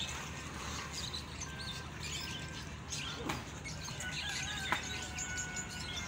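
Many caged birds chirping and tweeting at once in a busy chatter, with a few short held whistles and a couple of sharp clicks.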